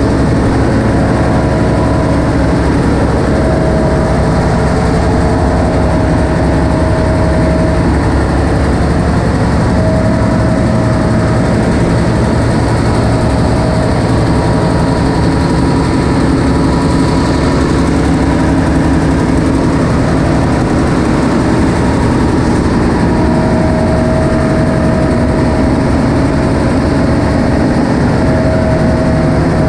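Diesel engines and machinery in a cargo ship's engine room running loud and steady, with a whine that comes and goes.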